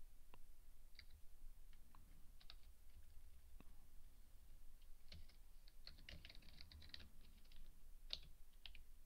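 Faint computer keyboard typing: scattered keystrokes, then a quick run of them between about five and seven seconds in, and one sharper keystroke a second later.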